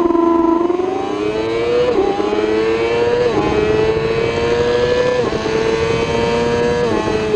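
Onboard engine of a 1000 cc race superbike under hard acceleration. Its pitch climbs between four quick upshifts, each a short dip in pitch, at roughly two-second intervals.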